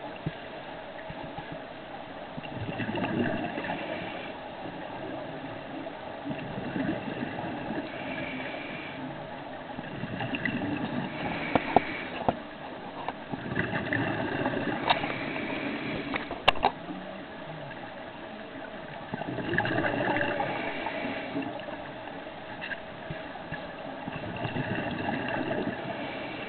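Scuba breathing through a regulator, heard underwater: bubbly rushing exhalations every few seconds, with a few sharp clicks in between.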